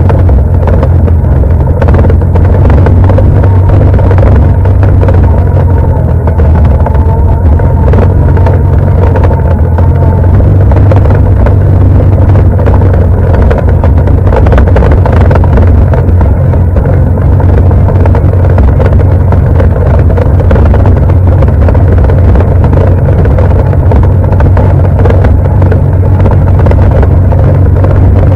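An ATV engine running steadily at speed, loud and close to the microphone.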